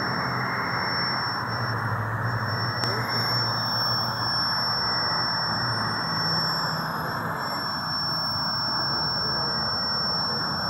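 Steady air hiss with a thin, high-pitched whine held throughout, from a railroad end-of-train device on the last car's coupler with its brake-pipe hose connected. A low hum under it fades after about seven seconds.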